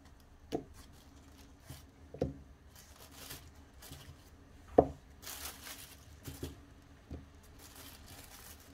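Floured zucchini pieces dropped one at a time into beaten egg in a bowl: several soft plops, the loudest about five seconds in, with brief rustles of the plastic bag the pieces are taken from.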